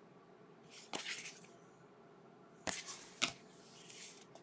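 Trading cards being handled and flipped through by hand: a papery rustle, then two sharp taps of card on card about half a second apart, and more soft rustling.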